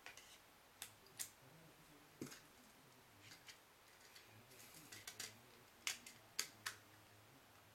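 Small plastic clicks and taps from a CECT i9 clone iPhone 3G being handled: the battery pressed into its compartment, then the plastic back cover snapped into place, with the sharpest clicks toward the end.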